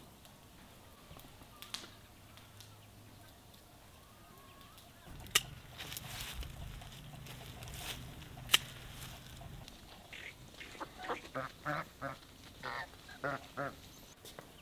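Farmyard waterfowl calling in a rapid run of short, repeated calls over the last few seconds. Earlier, two sharp clicks a few seconds apart stand out over a low rumble.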